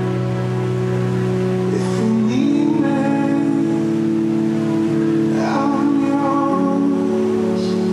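Ambient electronic music played from a mixer and laptop: held synthesizer chords that shift about two and a half seconds in and again about six and a half seconds in, with short sliding melodic lines above them.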